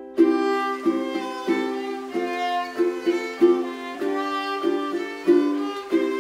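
Background music with strummed chords on a steady beat and a melody line over them.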